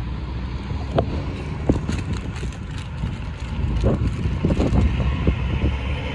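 Wind rumbling on the microphone beside a pond, with a few small pops and splashes scattered through it as bream rise to take food at the surface.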